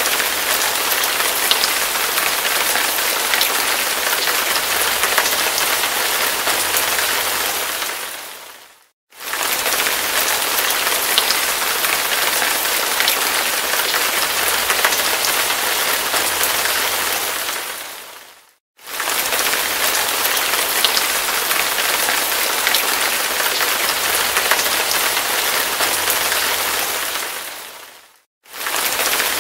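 Heavy rain falling hard: a dense, steady hiss flecked with the ticks of individual drops. It fades out to silence and back in three times, about every nine to ten seconds.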